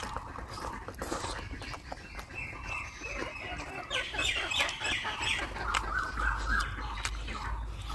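Chickens clucking in a run of quick, short calls from about two seconds in until near the end, with scattered sharp clicks.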